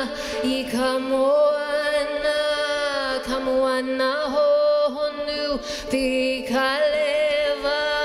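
A woman singing a Hawaiian chant in long held notes with brief upward bends in pitch, accompanied by a ukulele.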